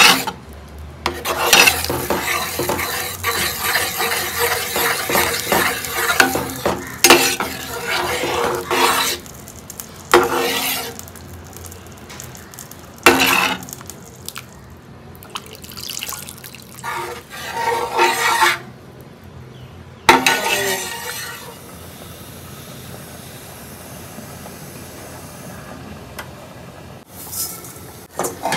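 Kitchen sounds of a spoon or other utensil stirring and scraping in a pot or bowl, with clinks of cutlery and dishes. The handling is busy for the first ten seconds, comes in scattered clinks after that, eases into a quieter steady stretch about three quarters of the way through, and picks up with clinks again near the end.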